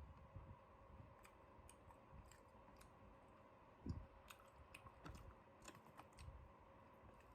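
Near silence with faint, scattered clicks at irregular intervals and one soft low thump about four seconds in.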